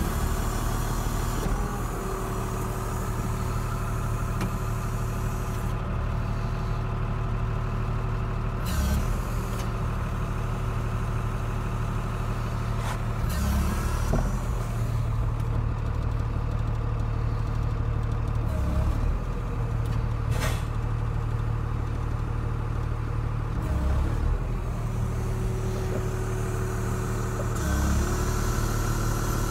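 JCB Fastrac tractor engine running steadily, heard from inside the cab, its note dipping briefly about six times as the auxiliary hydraulic valves are worked. Two sharp clicks stand out, one about halfway through and one about two-thirds of the way through.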